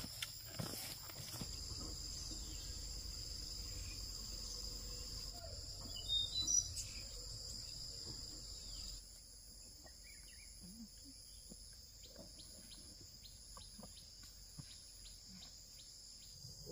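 Steady high-pitched drone of insects in the forest, with a few short bird chirps about six seconds in. The insect drone drops away a little past halfway, leaving a quieter stretch with faint, evenly spaced ticks.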